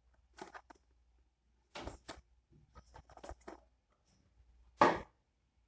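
A puzzle cube's cardboard-and-plastic box being handled and the cube taken out of it: a scatter of short, soft rustles and scrapes, with one louder knock or rustle just before the end.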